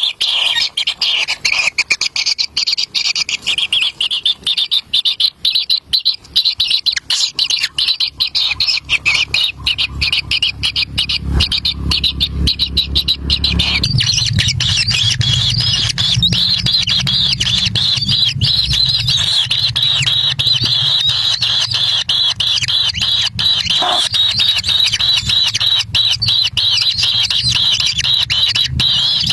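Kingfisher chicks calling at the nest, a dense rapid chatter of begging calls that grows into a steady run of calls, with a low rumble underneath from about a third of the way in.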